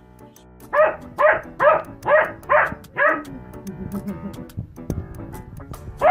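German Shepherd puppy barking six times in quick succession, about two barks a second, then breaking off; a new bark starts right at the end. Background music plays underneath.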